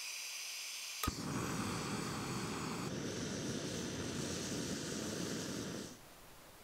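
Backpacking canister stove burner hissing steadily under a pot of water being heated. About a second in there is a sharp click, after which the hiss is louder and fuller. The hiss cuts off abruptly near the end.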